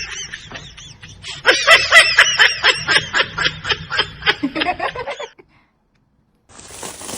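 Laughter: a quick run of short, high-pitched bursts, about four a second, breaking off about five seconds in.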